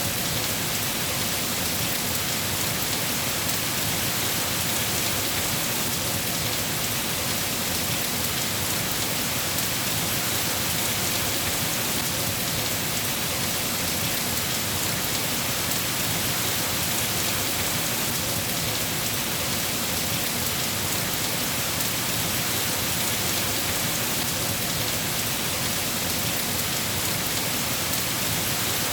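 Steady heavy rain falling on surfaces, an even hiss with no pauses or distinct thunderclaps.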